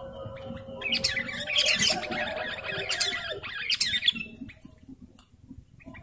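Sooty-headed bulbuls (kutilang) giving harsh, chattering calls for about three seconds, stopping about four seconds in.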